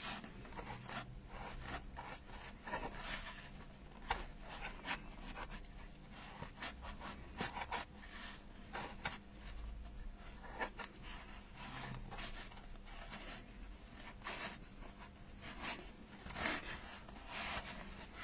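Felt fabric being pushed into grooves in a polystyrene foam pumpkin with a thin hand tool: irregular short scraping and rubbing strokes against the foam.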